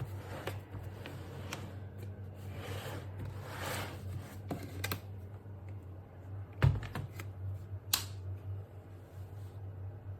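Light handling noises, clicks and rustling, with a sharp knock about two-thirds of the way through and a click soon after, over a steady low hum.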